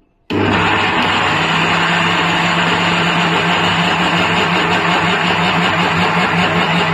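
Electric mixer grinder switched on with a steel jar of wheat grains and water, starting suddenly and running at a steady loud whirr as it grinds the wet wheat, with a steady low motor hum underneath.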